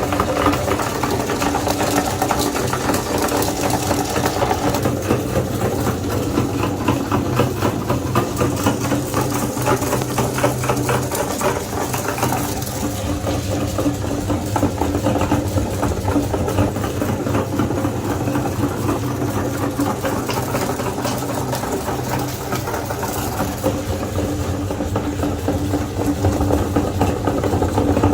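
Electric meat grinder running steadily with a motor hum and fine crackling throughout as food goes through it.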